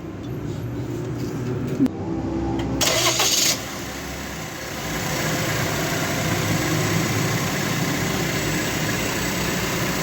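Car engine being started: a short loud burst of noise about three seconds in, then the engine running steadily and somewhat louder from about five seconds in.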